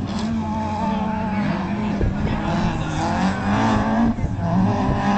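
Several autocross race cars' engines running hard on a dirt track, their pitch climbing and dropping back again and again as the drivers accelerate and change gear.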